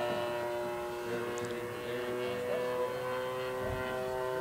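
Engine of a 30cc model Spitfire in flight, a steady buzzing drone whose pitch sags slowly as the plane flies overhead.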